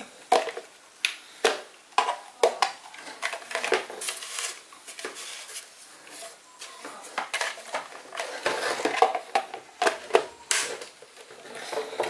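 A hard plastic handheld car vacuum cleaner and its cardboard box being handled: a string of irregular clicks, knocks and rustles as the parts are lifted out and set down.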